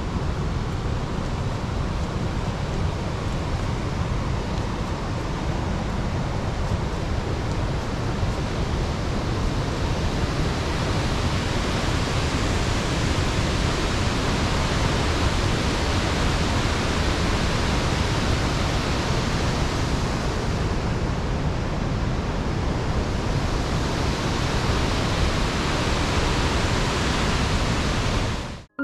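Steady roar of a waterfall, an even rushing noise across the whole range, which cuts off suddenly near the end.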